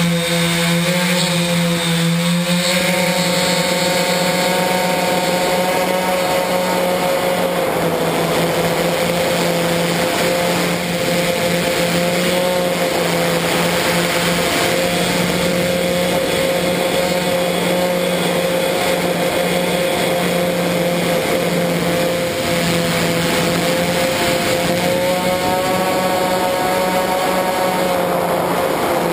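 Quadcopter electric motors and propellers droning in flight, heard from the camera mounted on the frame. A steady whine whose pitch wavers slightly and rises a little near the end.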